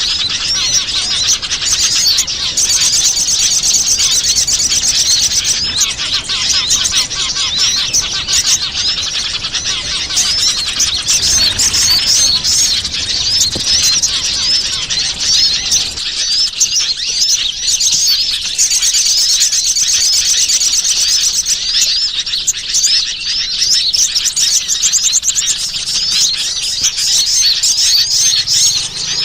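Bird-lure recording of many small wild birds chirping: a dense, continuous chorus of rapid, high-pitched, overlapping calls. About halfway through, the low background noise under the chirping falls away.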